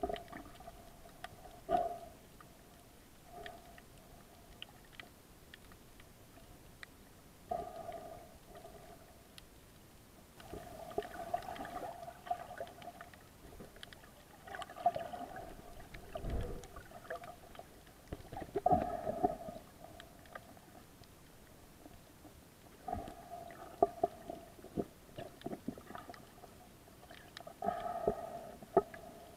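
Muffled underwater water noise heard through an action camera's waterproof housing: irregular gurgling surges a second or two long, with scattered sharp clicks.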